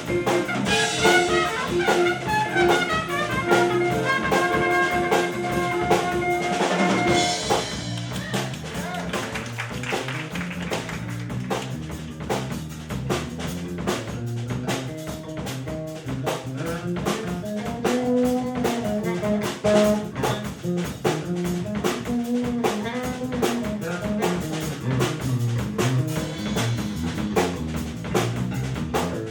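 Jazz-funk big band playing live. The brass section holds chords for about the first seven seconds, then drum kit, bass and guitar carry a busy groove.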